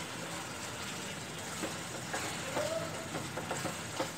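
A wooden spatula stirring ridge gourd curry in a non-stick pan, with light knocks and scrapes against the pan from about a second and a half in, over a steady hiss from the simmering pan.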